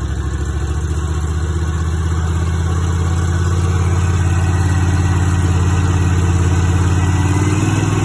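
Bad Boy commercial walk-behind mower's engine running just after a recoil start, the throttle being pushed up: the steady engine note grows gradually louder, with a slight rise in pitch near the end.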